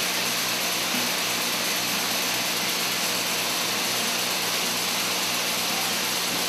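Syringe production machine running: a steady mechanical whir and hiss over a low hum.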